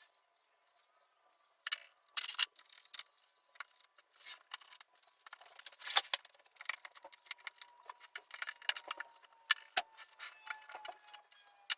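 Irregular light metallic clicking and clinking of small hardware being handled, starting after a quiet first second or two and getting busier in the second half.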